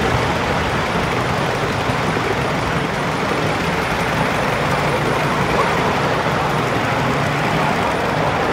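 Miniature railway train on a raised track, its steel wheels running along the rails in a steady rolling rumble.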